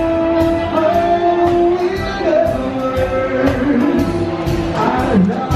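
Live band playing: a singer holding long notes over a steady drum beat and electric guitar.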